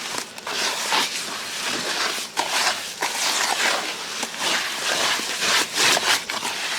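Wet mortar being mixed by hand with water: a continuous gritty, sloppy churning with many short scrapes. The mortar is close to the right consistency for pouring into paver forms.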